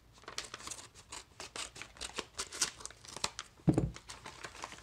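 A padded paper mailer being torn open by hand, with irregular crackling and crinkling of the paper and a dull thump about three-quarters of the way through.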